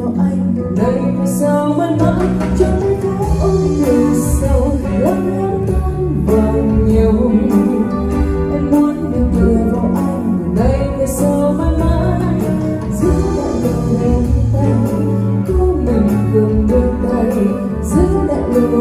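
A woman singing a Vietnamese karaoke song into a wireless microphone over a backing track. Both voice and track are heard through 4-Acoustic PCS-115Q full-range speakers paired with a PCS-118BQ subwoofer, with a steady bass line under the vocal.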